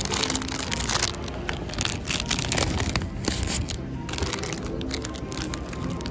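Clear plastic bag crinkling and rustling in a series of sharp crackles as a cookie is pulled out of it by hand.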